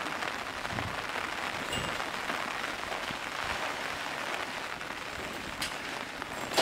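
Heavy rain pouring down steadily, an even hiss of a downpour.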